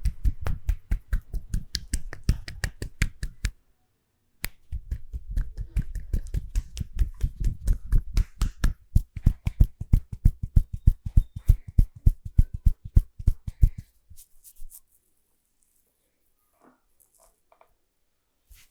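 Percussive massage strokes: hands striking the body in a fast, even rhythm of about five strokes a second, with a short break about four seconds in. The strokes stop about fourteen seconds in.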